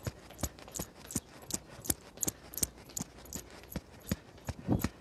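Running footfalls of trainers on stone paving slabs during high-knee jogging, a steady rhythm of sharp steps about three a second.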